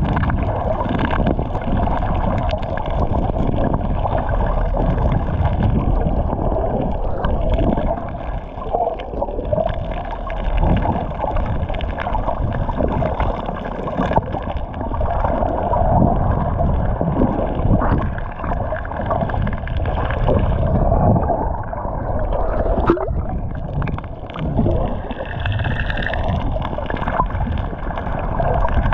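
Muffled gurgling and sloshing of seawater, heard through a camera held under the water; the noise swells and dips unevenly.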